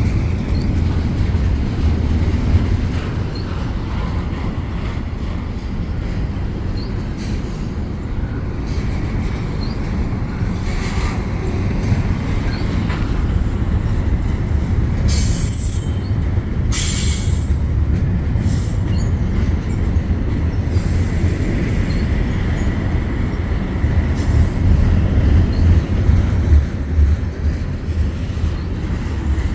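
Double-stack freight train rolling past at close range: a steady low rumble of wheels on rail, with brief high wheel squeals several times.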